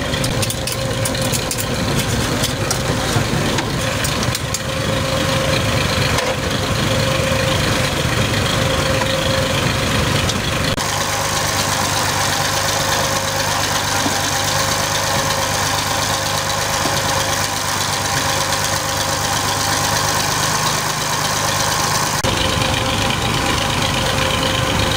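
Tractor diesel engine running steadily to drive a trailer-mounted mustard oil expeller as it presses mustard seed, with the machine's steady mechanical hum. The sound shifts abruptly about 11 seconds in and again near 22 seconds.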